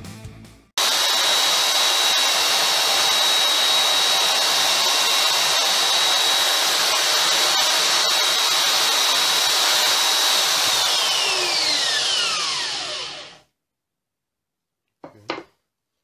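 Bosch belt sander running at full speed with a steady high whine as a small wooden numeral is sanded against its belt. It is then switched off and winds down with a falling whine over about three seconds. A brief knock follows about a second later.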